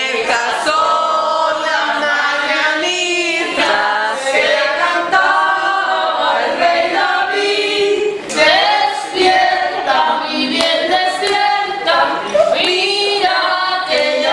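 A group of voices singing together without accompaniment: guests singing a birthday song.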